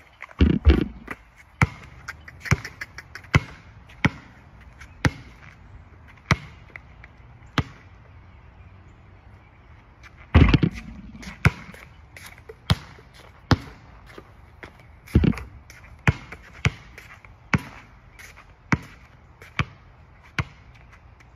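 A basketball bouncing on an outdoor hard court as a series of sharp separate bounces, with a few heavier, louder thuds: one about half a second in, one about halfway through and one a few seconds later.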